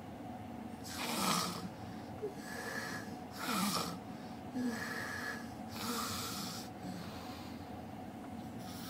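Elderly woman snoring in deep sleep: three harsh, loud snores about two and a half seconds apart, with a thin whistling breath between them.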